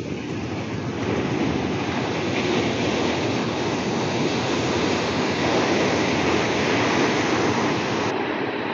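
Steady rush of wind buffeting the microphone, mixed with breaking surf.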